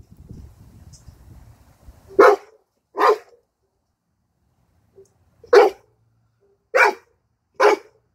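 A dog barking: five short, loud single barks, two about a second apart starting two seconds in, then a pause, then three more at roughly one a second.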